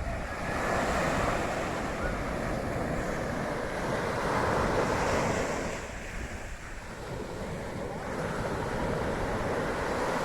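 Sea waves breaking and washing up the shore in slow swells, with wind buffeting the microphone.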